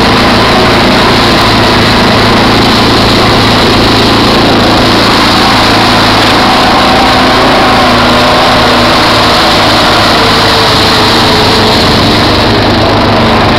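ATV engine running steadily at speed, loud and close. The wheels plough through shallow floodwater, and the spray hisses under the engine.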